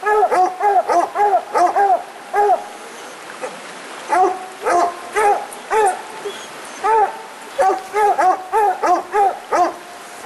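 Coonhounds barking treed: a rapid run of chop barks, about three a second, with a short break just after two seconds in before the barking picks up again. This is the tree bark that signals a raccoon has been run up the tree.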